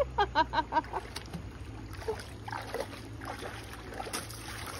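A quick run of high-pitched laughter, then splashing as a girl wades through shallow lake water, with a splash about four seconds in, over a steady low hum.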